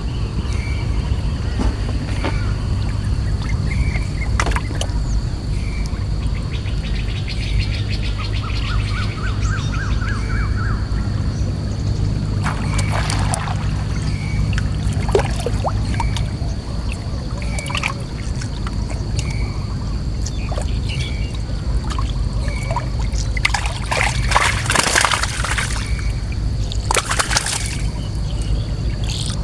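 Water splashing and dripping in a few short bursts, about halfway through and again near the end, over a steady low drone. A bird gives a short call again and again, roughly every second and a half, and a thin steady high tone, like an insect, runs underneath.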